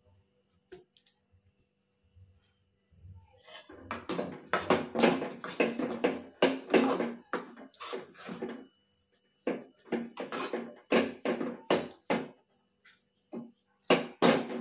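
A steel spoon scrapes and stirs in an aluminium pan as rice flour is worked into cooked rice for akki rotti dough. After a quiet start, it comes as a run of short, quick strokes.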